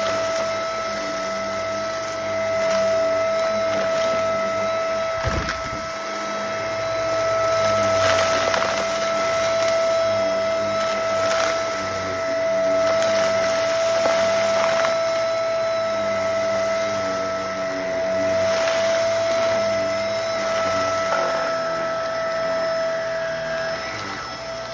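Vacuum cleaner running steadily with a constant high motor whine while it is worked over a rug picking up crumbs, the rushing sound swelling and easing every few seconds. There is a single low knock about five seconds in.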